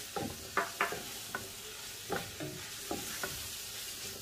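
Wooden spoon stirring stir-fried vegetables in a non-stick pan, with a quick, uneven run of short scrapes and knocks against the pan over a steady faint sizzle.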